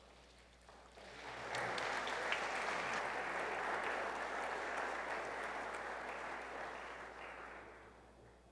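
Congregation applauding: clapping starts about a second in, holds steady, then fades away near the end.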